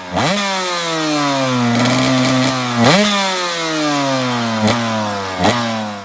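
KTM 125 EXC's single-cylinder two-stroke engine revving: three times the revs jump up sharply, then sink slowly back.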